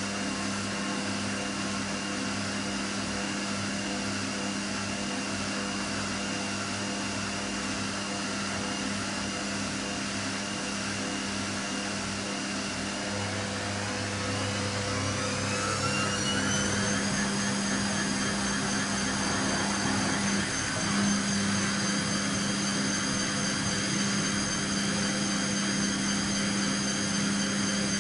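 Siemens 6127 front-loading washing machine spinning on the Easy Care program, a steady motor whine over the drum's hum. About halfway through the whine rises in pitch over a few seconds as the drum speeds up, then holds at the higher speed, a little louder. The owner says the machine now shakes somewhat on spin because it has not regained its stability since being moved and re-levelled.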